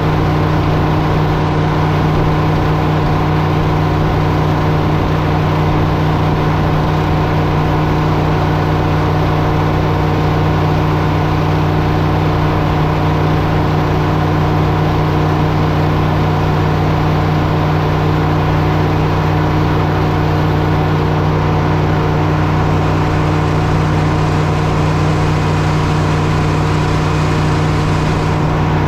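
Diesel engine running steadily at a constant speed: an even, continuous drone with strong low tones and no changes in speed.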